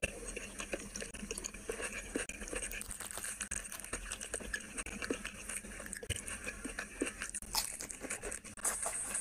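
Close-miked eating by hand: fingers squishing and mixing rice into curry on a plate, with many small, irregular wet clicks. Near the end a handful goes to the mouth and the clicks grow louder with chewing.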